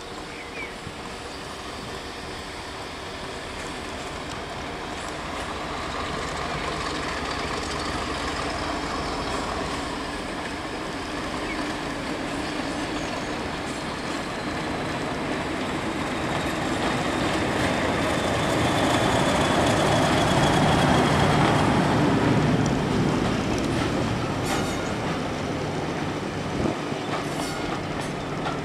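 English Electric Class 50 diesel locomotive, with its V16 engine, approaching and passing at low speed while hauling a train of coaches. The engine grows louder to a peak about two-thirds of the way through, then the coaches roll by with a few sharp wheel clicks over rail joints near the end.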